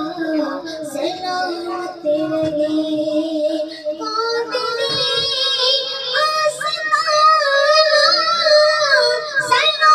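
A boy singing a naat, a devotional Urdu poem, solo into a microphone: a continuous melody of long held notes with wavering ornaments.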